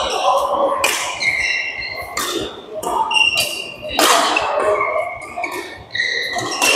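Badminton play: sharp cracks of rackets striking the shuttlecock and high squeaks of shoes on the court mat, echoing in a large hall.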